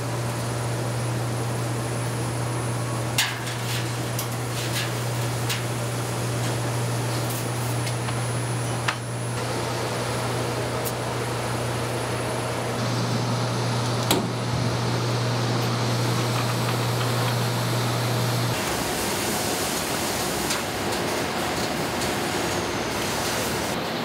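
Steady fan whir of commercial tumble dryers running, with a low hum that stops about 18 seconds in. A few sharp clicks are heard along the way.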